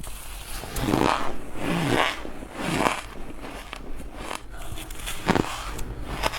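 Close-up bites into powdery chunks of ice, crunching loudly several times: three big crunches in the first three seconds and another about five seconds in, with small crackling clicks in between.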